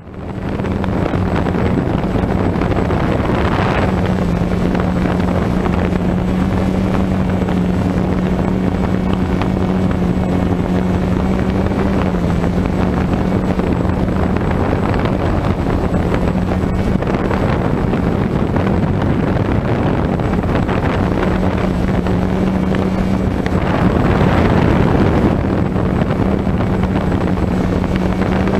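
Camera drone's electric motors and propellers, heard from onboard: a steady buzzing hum that shifts slightly in pitch as the throttle changes, with some wind on the microphone.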